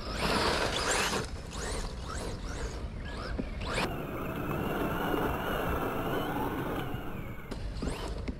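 Electric motor and drivetrain of an LC Racing EMB-WRC RC rally car, converted to rear-wheel drive, whining as it drives on grass, the pitch rising and falling again and again with the throttle. There is a loud rush of noise in the first second, and from about four seconds in a steadier, wavering whine.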